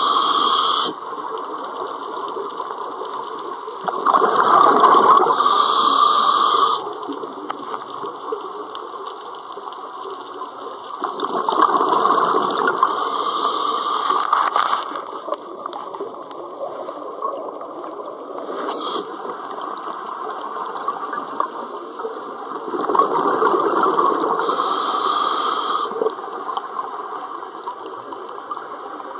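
Scuba diver's exhaled breath bubbling out of the regulator, recorded underwater: loud rushing bursts a few seconds long, three of them plus one ending about a second in, with quieter stretches of breathing in between.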